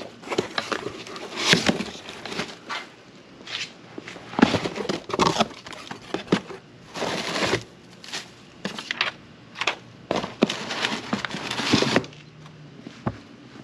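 A cardboard shipping box torn open by hand, and its crinkled kraft-paper packing rustled and pulled about: a run of irregular tearing, crackling and crinkling noises, some short and some drawn out.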